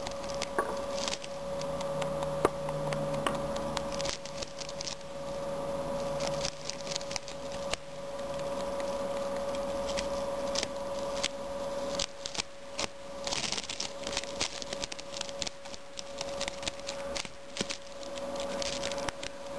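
Pet rabbit gnawing on a woven dried-grass hut, the strands snapping between its teeth in an irregular run of quick, crisp clicks, over a faint steady hum.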